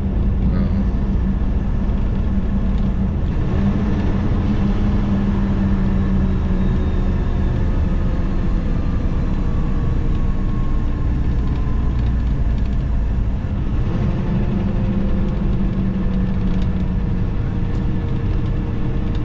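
Semi-truck diesel engine and road noise heard inside the cab while driving: a steady low rumble, with a brief dip and change in engine pitch about two-thirds of the way in.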